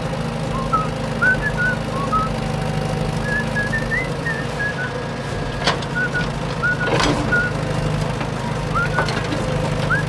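A vehicle engine running steadily, with short high chirping whistles scattered over it and two sharp knocks around the middle.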